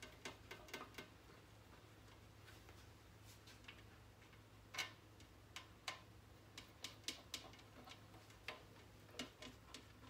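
Faint, irregular small clicks and taps of hands handling a glass computer-case side panel, over a low steady hum.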